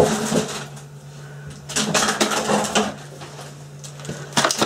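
Kitchen handling noises from vegetables being prepared by hand: two bursts of rustling and knocking, then a quick run of sharp clicks near the end, over a steady low hum.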